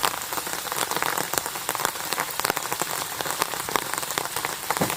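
Rain falling steadily, a dense patter of drops striking a surface.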